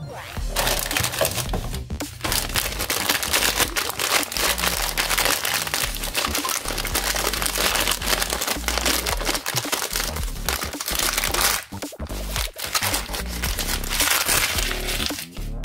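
Dense crinkling and crackling of packaging being handled, pausing briefly about twelve seconds in. Background music with a steady bass line plays under it.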